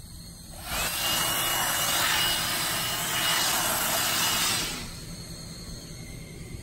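A loud rush of air that starts abruptly about a second in and stops about four seconds later, with a faint high whine running through it.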